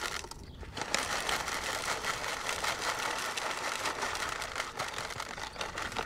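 Sweet corn seed pouring from a paper bag into a corn planter's little plastic seed hopper: a dense, steady rattle of many small kernels, with a brief break just after it starts.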